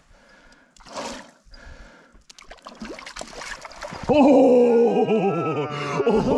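Trout splashing and thrashing in the shallows as it is scooped into a landing net. About four seconds in, a man's loud, drawn-out excited shout takes over.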